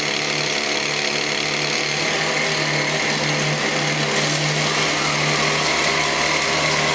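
Small electric hobby motor spinning a screw auger down into wet sand, a steady whirring hum.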